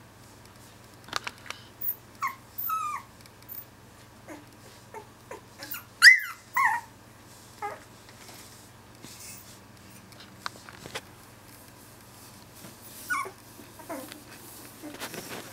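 Two-week-old Finnish Lapphund puppies whimpering and squeaking in short, high, sliding cries. The cries come scattered, and the loudest squeal is about six seconds in.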